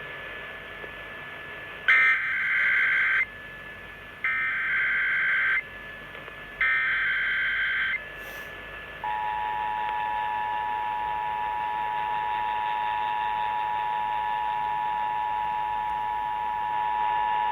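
Emergency Alert System test over AM radio: three bursts of the SAME header's warbling digital data tones, each a little over a second long, then about nine seconds in the steady two-tone EAS attention signal (853 and 960 Hz together) begins and holds.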